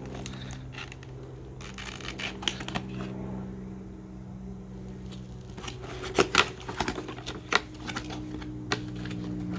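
Cardboard headphone box being opened and handled: rustling and scraping, then a series of sharp clicks and taps in the second half, over a steady low hum.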